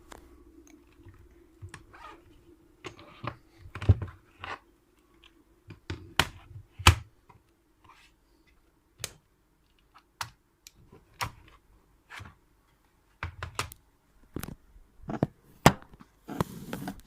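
Irregular plastic clicks and knocks of a laptop and its battery being handled, with a short rustle near the end.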